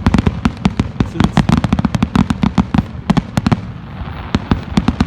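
Fireworks finale: a rapid barrage of aerial shells cracking and booming, many reports a second, loud enough to be felt, thinning to a few scattered bangs after about three and a half seconds.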